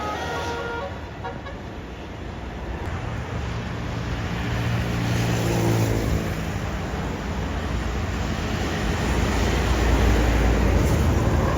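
Road traffic: a large vehicle's engine rumble builds and passes, loudest near the end.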